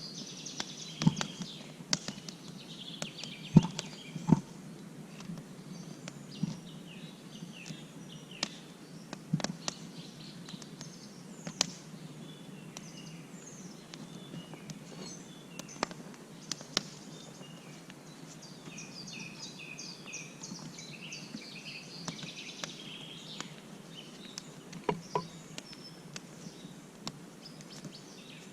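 Small birds chirping steadily, with scattered sharp snaps and cracks; the loudest come a few seconds in and again near the end.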